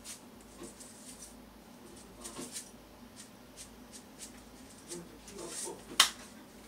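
Salt being dispensed over a small bowl of dipping sauce, heard as a series of small, sharp ticks from the dispenser. A single sharp click about six seconds in is the loudest sound.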